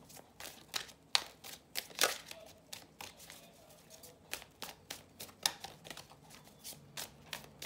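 A deck of tarot cards being shuffled by hand: a run of light, irregular card slaps and riffles.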